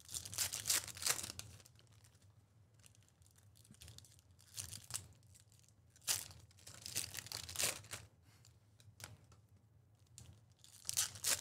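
Foil wrappers of trading card packs being torn open and crinkled by hand. The sound comes in several short, irregular bursts of ripping, with quieter handling in between.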